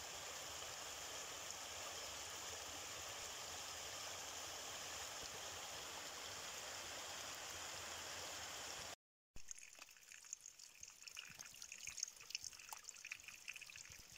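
Small forest stream running over rocks in a steady rush. After a break about nine seconds in, quieter water trickles and drips irregularly where it seeps from a wet, grassy earth bank.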